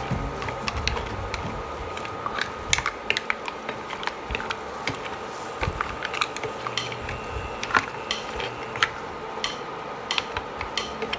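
Wooden spatula stirring mussels, shrimp and squid rings in a nonstick pan: irregular clicks and clacks of mussel shells knocking against the pan and each other, over a steady background hiss.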